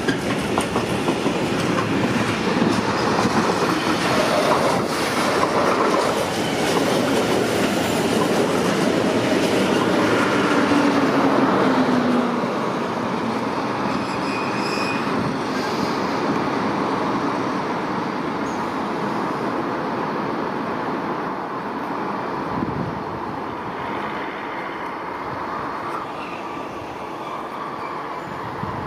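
Train running on the tracks, wheels clattering over the rail joints, loudest for the first twelve seconds and then slowly fading. A brief high squeal comes about fourteen seconds in as a DB class 143 electric locomotive with S-Bahn coaches runs along the platform.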